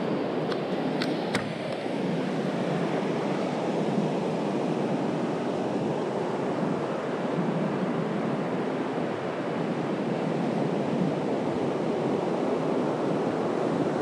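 Sea surf breaking and washing up a sandy beach, a steady rush of waves. A few light clicks near the start as the fishing rod is handled in its rest.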